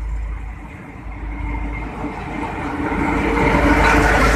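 Two coupled GMU-15 diesel locomotives running light without a train, approaching and passing close by. Their engine sound grows steadily louder as they draw level.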